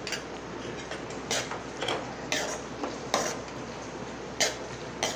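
A spoon clinking and scraping against a cooking pan while spices are stirred into a gravy: about seven sharp, irregularly spaced knocks over a faint steady hiss.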